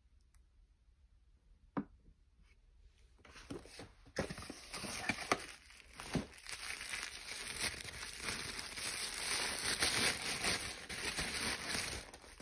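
A single sharp knock just before two seconds in, as a glass cream jar is set down on a table. From about three seconds in, thin white wrapping paper crinkles and rustles with many small crackles as hands unwrap a bottle from it.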